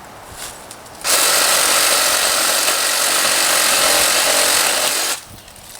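Ryobi 18-volt cordless reciprocating saw with a pruning blade running and cutting through a tree limb. It starts abruptly about a second in, runs steadily for about four seconds, and stops near the end.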